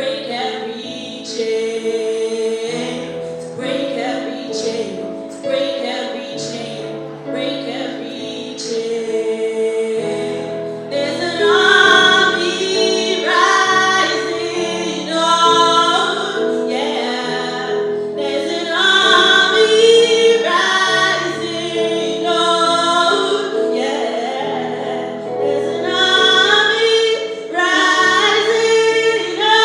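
A solo singer holding long notes with vibrato over a sustained instrumental accompaniment, the singing growing louder and fuller about a third of the way in.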